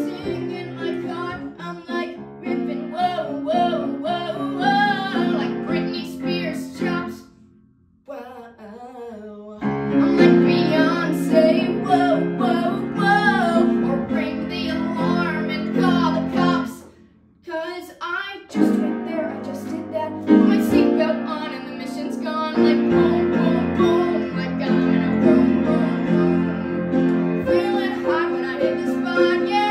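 Teenage girl singing a musical-theatre song over an instrumental accompaniment. The music drops almost to quiet twice, briefly.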